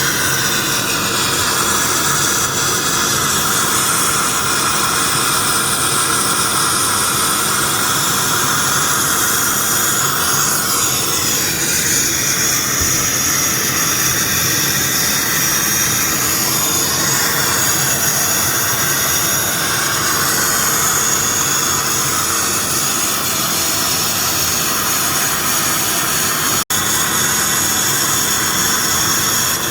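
Akwilon CNC automatic sandblasting machine running: a loud, steady hiss of compressed-air abrasive blasting with thin whistling tones. The pitch of the noise shifts about ten seconds in, and the sound breaks off for an instant near the end.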